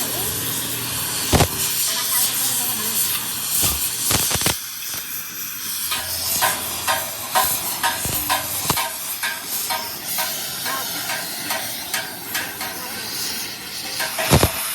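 Steady hissing crackle of arc welding on a steel tractor axle tube, with a few sharp metallic knocks.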